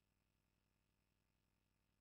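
Near silence, with only a very faint steady low hum.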